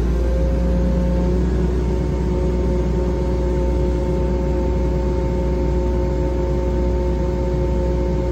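XCMG 210 hydraulic excavator's diesel engine running steadily, with a steady whine over the low rumble; a second, lower whine joins about a second in.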